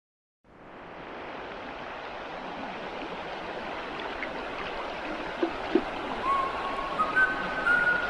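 A steady rush of running water, fading in just after the start. A few brief high whistling tones come in near the end.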